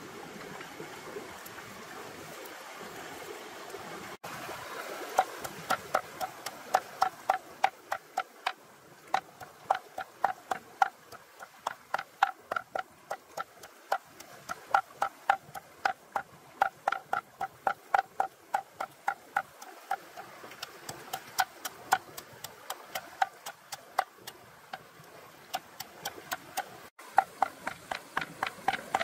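Cleaver chopping on a round wooden chopping board, mincing meat and chilies: a steady run of sharp knocks about three a second, starting about five seconds in. A stream rushes underneath.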